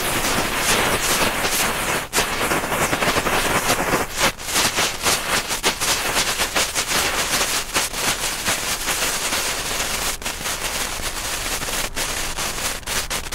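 Small youth-class ground firework burning with a continuous hiss and a dense, irregular crackling and popping, a rapid run of sharp cracks like a string of tiny shots.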